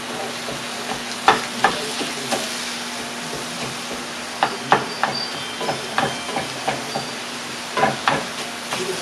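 Italian sausage and diced onion sizzling in a skillet, with a plastic meat chopper scraping and knocking against the pan as it breaks up the meat: sharp knocks come in small clusters about a second in, around four and a half seconds, and near the end.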